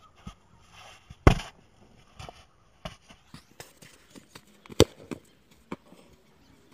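A football thudding twice, about a second in and again just before five seconds, the second a run-up kick struck toward the goal. Light footsteps scuff on sandy dirt between the two.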